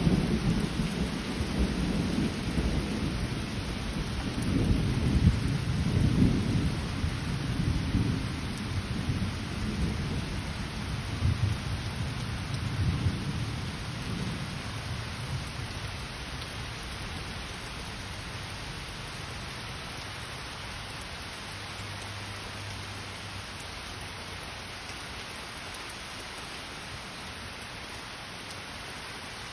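Heavy rain falling steadily, with a long low rumble of thunder that is loudest in the first few seconds and dies away about halfway through.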